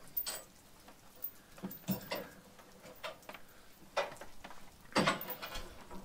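Scattered light knocks and clicks, a few a second apart, as a squared log is handled and set on a band sawmill's bed.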